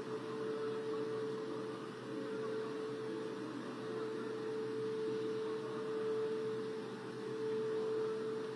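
Air-raid siren holding one long steady tone over a faint hiss, warning of an air strike.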